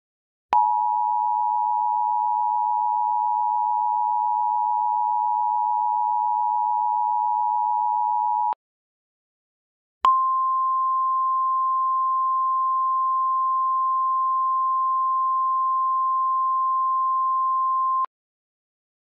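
Emergency Alert System tones. First the two-tone attention signal is held steady for about eight seconds. Then, after a short gap, a single steady NOAA Weather Radio warning alarm tone sounds for about eight seconds.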